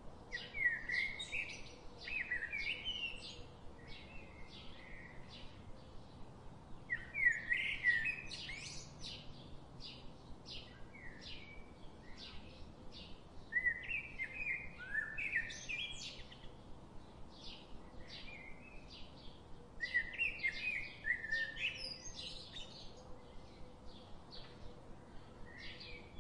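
Birds chirping: a short high chirp repeated about twice a second, with a louder warbling song phrase breaking in every six or seven seconds.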